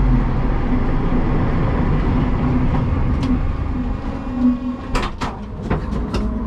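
Toyota Starlet KP61 race car's four-cylinder engine running slowly, heard from inside the stripped cabin, dying down about four seconds in. Several sharp clicks and knocks follow near the end.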